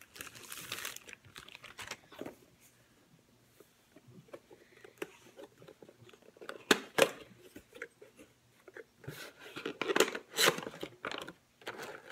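Product packaging being handled and opened by hand: crinkling and tearing with scattered clicks, and a few sharper knocks about seven and ten seconds in.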